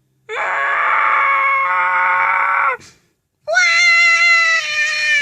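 Two long, high-pitched screams, each held about two and a half seconds at a nearly steady pitch, with a short gap between them.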